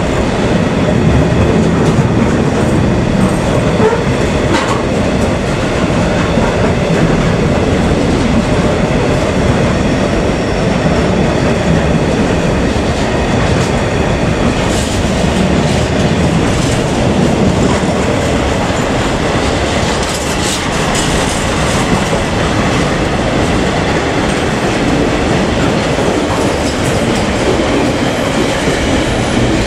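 Container freight train passing close by at speed: the container wagons' wheels run steadily and loudly on the rails, with no break.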